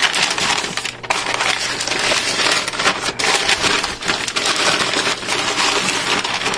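Newspaper wrapping crinkling and rustling as it is pulled off a motorcycle fairing by hand, a continuous run of paper crackle.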